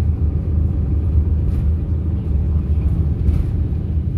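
Steady low rumble of a bus travelling at speed, heard from inside the passenger cabin.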